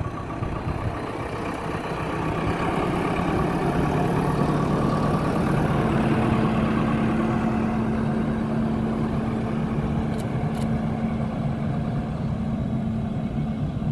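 JCB backhoe loader's diesel engine running. The revs rise after a couple of seconds to a steady, higher note as the machine carries a concrete culvert pipe in its front loader bucket. Two light clicks come about ten seconds in.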